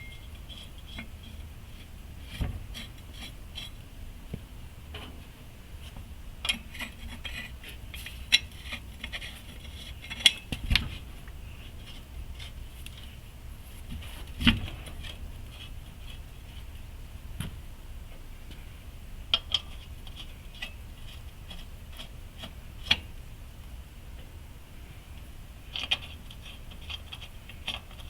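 Scattered metallic clinks, taps and knocks of hand tools and parts being handled during work on the truck's front brakes and wheel hub, with a few louder knocks spread through.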